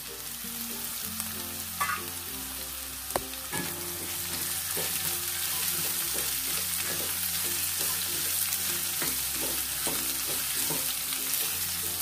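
Chopped gourd sizzling in hot oil in a nonstick wok with onions and peanuts, stirred with a spatula; the sizzle grows louder about four seconds in as the vegetable spreads through the pan.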